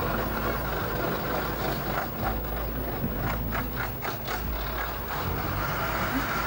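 Truck engine running with a steady low rumble. From about two seconds in, a quick run of sharp rattling clicks lasting a couple of seconds.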